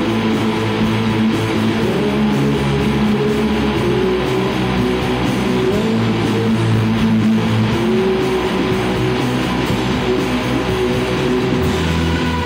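Live shoegaze band playing a loud wash of distorted electric guitars over bass, with long held and sliding guitar notes. The deepest bass drops away at the start and comes back near the end.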